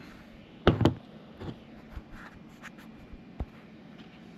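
A finished 3D print being taken off the printer's build plate by hand: two sharp clicks just under a second in, then light scraping and a scatter of small ticks.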